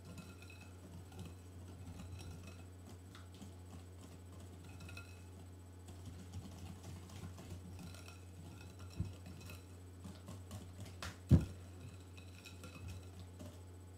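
Hand utensil stirring thick chocolate brownie batter with freshly added eggs in a glass bowl: soft scraping and light ticks against the glass, and a sharp knock on the bowl about eleven seconds in. A steady low hum runs underneath.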